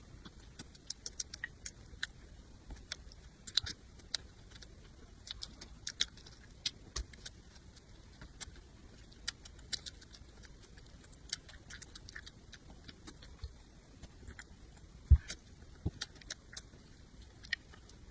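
Close-miked eating: irregular crisp clicks, smacks and crunches of chewing and mouth sounds, with one heavier thump about fifteen seconds in.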